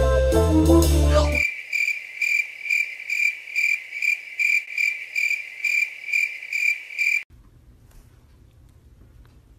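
Cricket chirping, a steady run of high chirps about two a second, used as a comic 'silence' sound effect. It comes in after about a second and a half of loud brass-and-drums music and cuts off suddenly near the end, leaving faint room noise.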